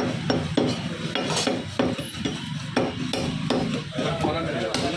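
Butcher's knife chopping goat meat on a chopping block: a run of sharp strikes, about two or three a second, over a steady low background hum.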